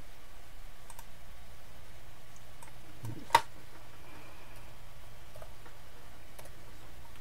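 Scattered clicks of a computer mouse and keyboard, with one sharper, louder click about three and a half seconds in, over a faint steady low hum.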